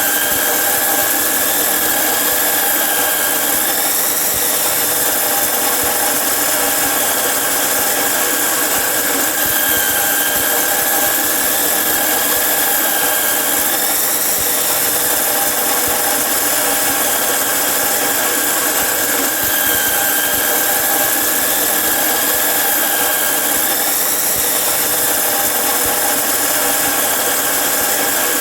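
Angle grinder cutting iron: a continuous loud, high whine over grinding noise. The pitch sags briefly about every ten seconds, as the disc bites harder into the metal.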